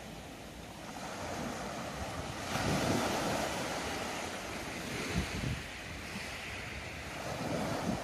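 Small waves washing up on a dark sand beach and drawing back, the wash swelling loudest about three seconds in and again more softly twice after. Wind buffets the microphone, adding low rumbling thumps.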